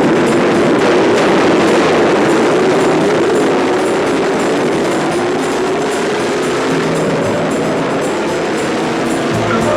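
Exhaust noise from a pack of racing car engines at full throttle, bursting in all at once, its pitch rising slowly as the cars accelerate away from the start.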